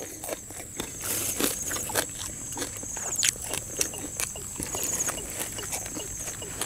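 Close-up eating sounds: wet chewing with many short mouth smacks and clicks, under a steady high-pitched buzz.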